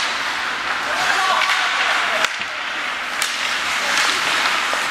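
Ice hockey small-area game: skates scraping the ice and indistinct players' shouts, with two sharp hits about two seconds in and again a second later.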